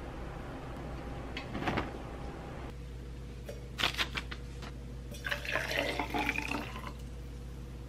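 A brief rustle of towels on wire hangers, then a few light clicks as a cup and glass pitcher are handled on a table, then water poured from the glass pitcher into a tall cup for about a second and a half, its pitch rising as the cup fills.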